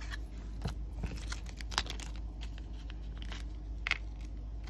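Clear plastic packaging and sticker sheets rustling and crinkling as hands unwrap and handle them, with a few sharp ticks.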